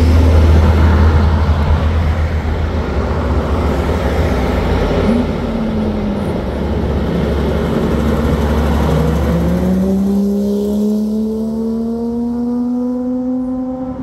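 Road traffic passing with a heavy low rumble, then a heavy truck's diesel engine pulling away from about nine seconds in, its pitch rising steadily as it accelerates.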